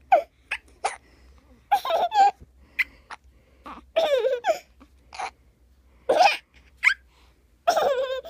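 A young child hiccupping again and again, with short high-pitched bursts of laughter in between.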